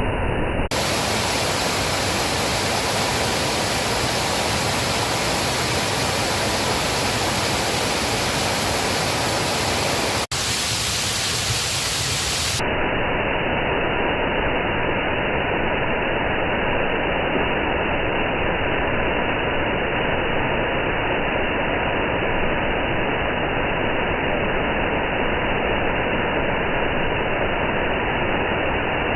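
Waterfall's steady, loud rush of falling water, with sudden changes in the sound about a second in, about ten seconds in and again at about twelve and a half seconds, where the recording is cut.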